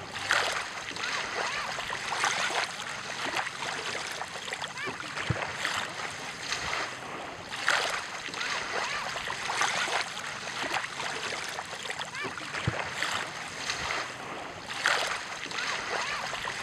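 Ocean surf: waves breaking and washing in, a steady rush that swells every two to three seconds.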